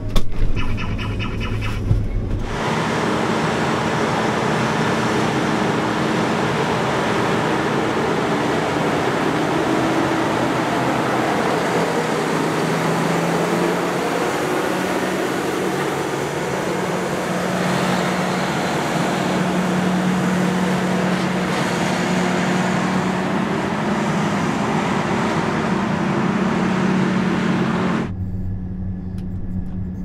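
Combine harvester machinery running: a steady rushing noise with a low engine hum that wavers in pitch. It opens with a couple of seconds of a rapid run of high beeps, and about two seconds before the end drops to a quieter, lower hum like the inside of the cab.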